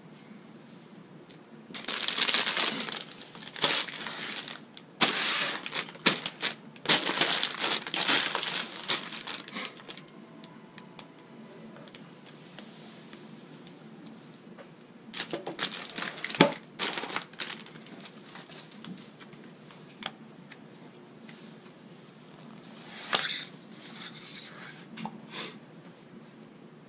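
Crinkling and rustling of plastic LEGO parts bags and paper instruction-booklet pages being handled, in irregular bursts. A single sharp knock about two-thirds of the way through, as something is set down on the wooden table, is the loudest sound.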